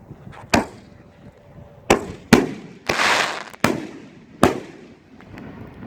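Three 5-inch canister firework shells going off together: six sharp booms over about four seconds, with a short hiss in the middle of the run.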